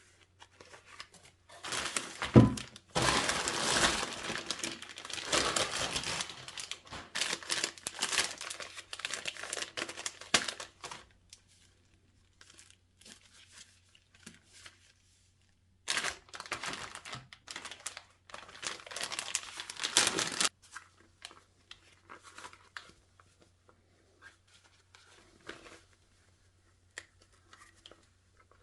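Packaging being torn open and crumpled by hand: two long spells of crackling and ripping, with a thump about two seconds in. Scattered light handling clicks fill the gaps.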